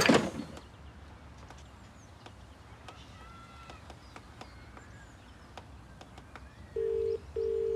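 A loud bang dies away at the very start. Faint bird chirps follow over a quiet background. Near the end a British telephone ringback tone sounds once as a double 'ring-ring' while a call is placed and waits to be answered.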